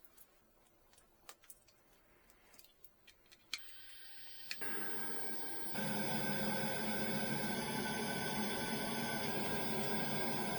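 Faint ticking and handling clicks, then two sharp clicks like a relay switching, and about six seconds in an electric fan motor on HVAC equipment starts up and runs steadily with a hum.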